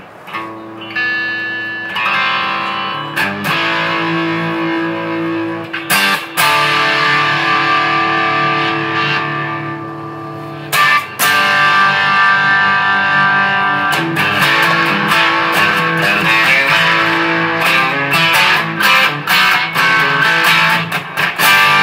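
Electric guitar being played: ringing chords and single notes, getting louder and busier with quicker strumming about eleven seconds in.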